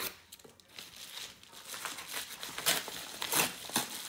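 Paper mailer envelope crinkling and rustling as it is handled and pulled open, with several sharp crackles in the second half.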